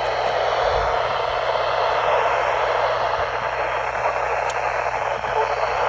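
Steady radio static hiss with a low hum underneath, from a weather radio receiver.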